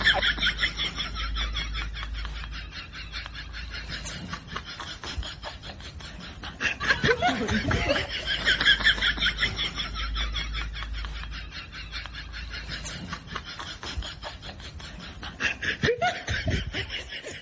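A group of men laughing and calling out while they splash about in a shallow stream pool, with louder bursts of laughter at the start and again about seven to ten seconds in.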